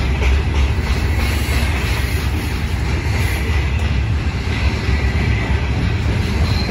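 Herzog ballast hopper cars rolling past on the track: a steady, loud rumble of steel wheels on rail, heaviest in the low end.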